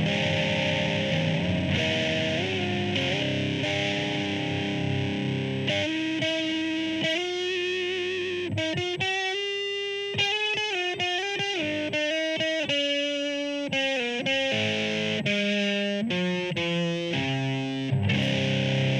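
Electric guitar on its bridge pickup with volume and tone knobs maxed, played through distortion pedals. Chords ring for the first several seconds, a run of single notes comes from about the middle, and chords return near the end.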